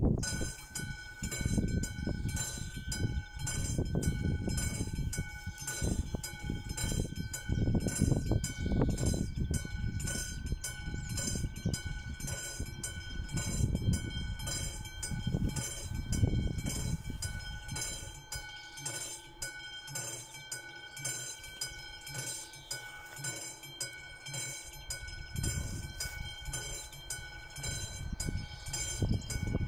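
Electric warning bell of an AŽD 71 level-crossing signal ringing continuously in rapid metallic strokes: the crossing is activated, warning of an approaching train. An uneven low rumble sits underneath.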